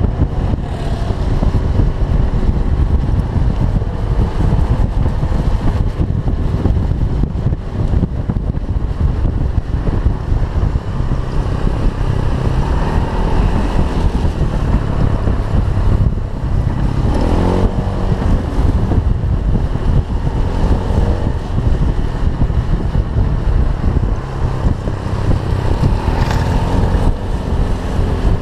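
Heavy wind rush on the microphone of a moving Honda Zoomer-X motor scooter, with its small single-cylinder engine running underneath. A changing engine tone shows through briefly about 17 seconds in and again near 26 seconds.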